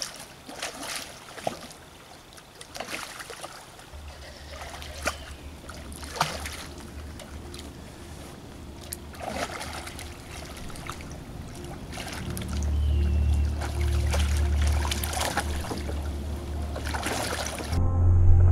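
Repeated splashing in a shallow river from a hooked steelhead thrashing at the surface and a dog wading alongside. Low background music comes in a few seconds in and grows louder in the second half.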